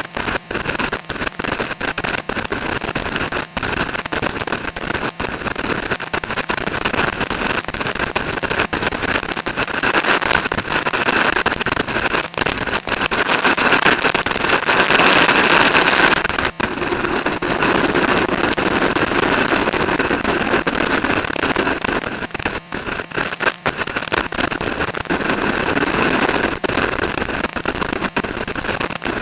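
Strong wind buffeting the microphone: a loud, rough rush of noise broken by crackles and dropouts, swelling to its loudest about halfway through.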